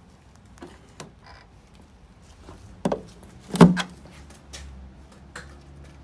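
Tesla wall connector's charging handle being pushed into a Tesla Model S charge port: light handling clicks, then a click and a solid clack about three quarters of a second later as the plug seats.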